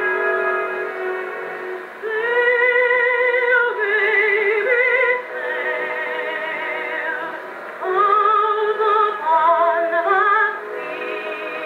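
An Edison phonograph in a Jacobean cabinet plays an acoustic Edison Diamond Disc: a contralto sings with strong vibrato over instrumental accompaniment. New sung phrases start about two seconds in and again about eight seconds in, and the sound is thin and lacks high treble, as old acoustic recordings do.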